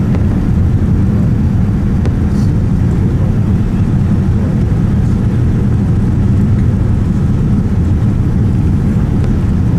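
Steady loud rumble of cabin noise inside a Boeing 787 Dreamliner: engine and airflow noise with a low hum.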